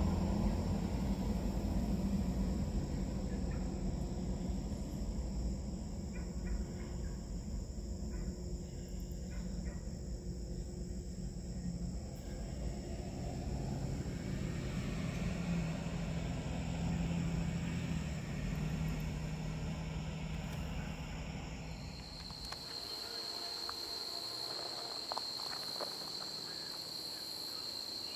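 Low rumble of a freight train with a steady diesel engine drone, slowly fading. About three quarters of the way through it cuts off abruptly and insects chirr in a steady high tone.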